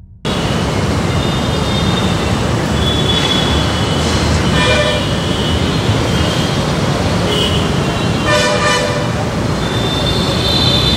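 Steady street traffic noise, with a vehicle horn sounding twice, about four and a half and eight and a half seconds in.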